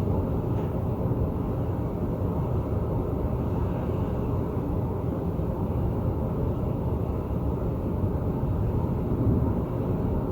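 Thunder rolling in a long, deep, continuous rumble that holds fairly steady throughout.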